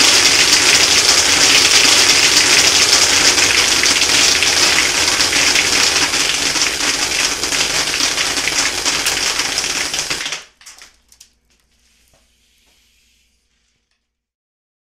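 Homemade soda-bottle airsoft machine gun, running off a compressed-air blow gun, firing continuously: a rush of air and a rapid, dense rattle of BB pellets hitting a plastic-wrapped target. It stops abruptly about ten seconds in, with a few last scattered hits.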